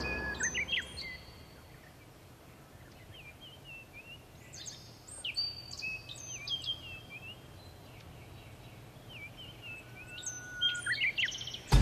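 Small birds chirping and calling: short whistled notes and quick rising and falling chirps, in bursts near the start, through the middle and again near the end, with quiet gaps between.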